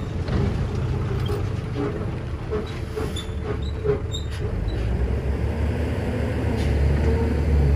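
Diesel engine of a Hyundai dump truck running as it drives over dirt and passes close by, with scattered knocks and rattles from the truck; it grows louder near the end.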